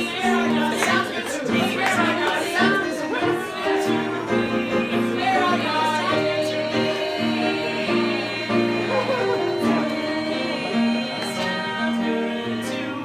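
Several voices singing a song together over live instrumental accompaniment, with chords held underneath the melody.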